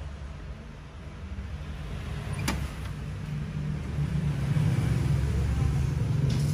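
Low hum and rumble from the Sharp GS-TV3 music system's speakers as its turntable stylus rides a spinning vinyl record, growing louder, with one sharp click about two and a half seconds in.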